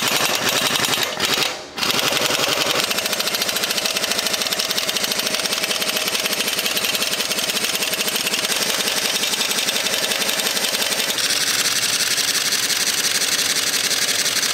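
Impact wrench hammering on a fabricated tool fitted over a seized road-wheel hub cap, trying to spin the cap off after it was heated and quenched. It stops briefly about a second and a half in, then hammers on steadily without a break.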